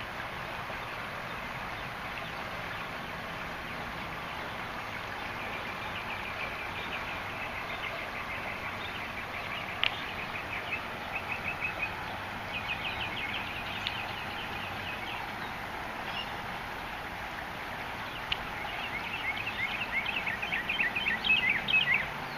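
Outdoor background hiss with repeated bouts of fast trilled calls from a bird, each trill a rapid run of short notes. The trills come in several bursts and grow loudest near the end.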